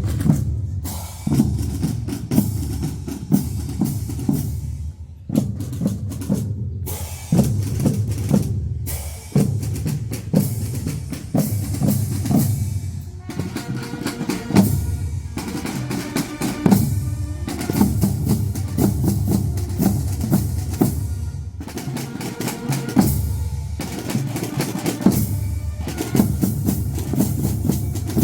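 Fanfare band drum section playing a marching cadence: bass drums booming under snare drums, with snare rolls and a few brief breaks in the beat.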